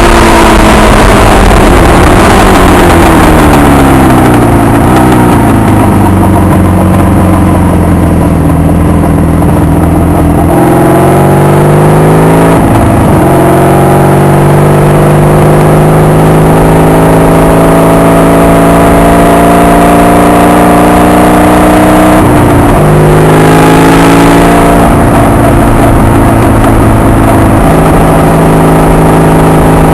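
Honda VF750 V4 motorcycle engine under way and recorded very loud: its note falls steadily for about ten seconds as the bike slows, then climbs again under acceleration, dropping back briefly at gear changes about halfway and about two-thirds of the way through.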